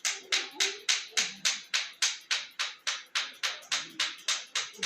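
Rapid, even slapping of a hand on the body, about four sharp slaps a second, as in percussive hand treatment of the limb.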